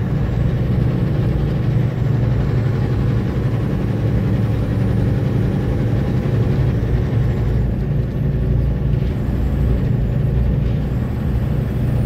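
Truck under way on a road: steady engine and road noise, a constant low drone with no change in speed.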